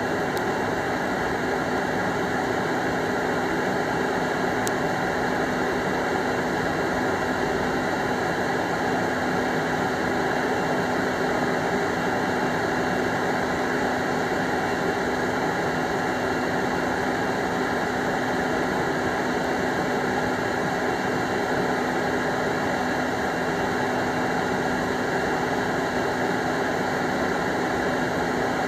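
Cordless leaf blower running at a steady speed, pushing air through a clothes dryer vent duct to blow out the lint: an even rush of air over a constant low motor hum.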